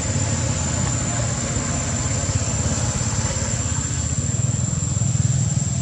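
Steady low rumble of a small engine idling, with a constant thin high-pitched whine above it.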